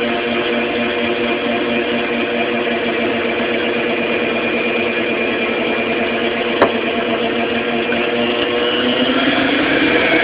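Electric stand mixer motor running steadily, its dough hook turning through flour for pizza dough. There is a single click about six and a half seconds in, and the motor's pitch rises slightly near the end.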